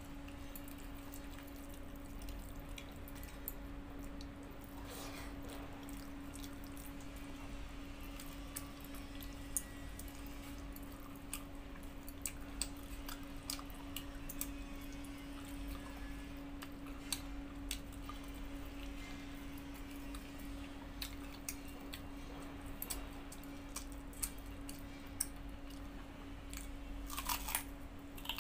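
Close-up eating sounds: fingers mixing rice and chicken curry on a steel plate, with small wet clicks and smacks of chewing, over a steady low hum. Near the end comes a louder crunch as a raw onion is bitten into.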